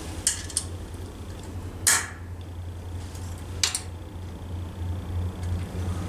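A few short, sharp clicks or clinks over a steady low hum. The loudest click comes about two seconds in and another near four seconds.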